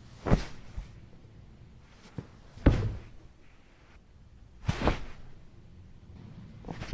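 Body-fall sound effect: a heavy thud with a brief rustling tail, repeated about four times roughly two seconds apart, the last one the loudest.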